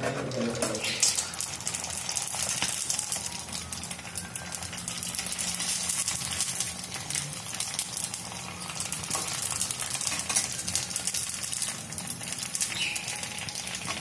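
Ready-to-fry pani puri pellets frying in hot oil in a kadai: a steady crackling sizzle as they puff up into puris.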